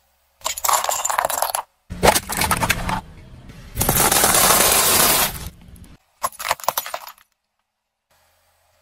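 A car tyre crushing brittle objects in a few separate bursts of snapping and crunching. Sticks of chalk break first, then a pile of seeds crackles for over a second, which is the loudest part, then a few short crunches follow.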